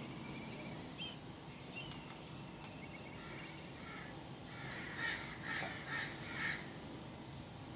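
Birds calling: four loud calls in quick succession a little past the middle, with a few faint short chirps earlier on.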